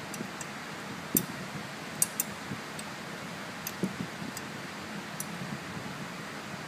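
Scattered light metallic clicks of a hand wrench working the outlet-pipe flange bolts against the turbo's turbine housing, with a pair of sharper clicks about two seconds in. This is the bolt being snugged to pull the flange, gasket and housing together and close the gap. A steady hiss runs underneath.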